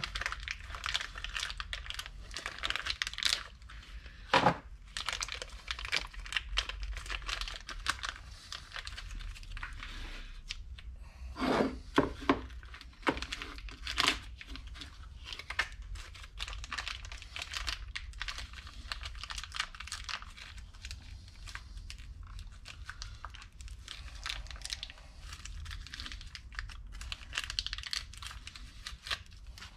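Continuous light rustling and small clicks from hands handling parts, with a few sharper knocks about four seconds in and again around twelve and fourteen seconds.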